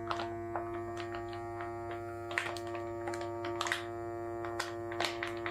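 eSUN eVacuum USB-powered handheld vacuum pump running with a steady hum as it draws air out through the valve of a filament storage bag. Irregular crackles of the plastic bag tightening around the filament spool come through on top.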